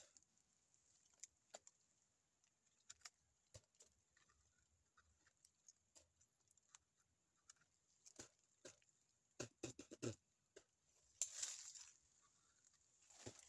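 Teeth gnawing and scraping at a tree's bark: scattered faint clicks and crunches, with a cluster of louder ones past the middle. Two short breathy puffs near the end.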